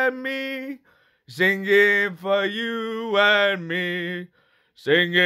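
A man singing unaccompanied in long held notes, with short breaths between phrases about a second in and near the end.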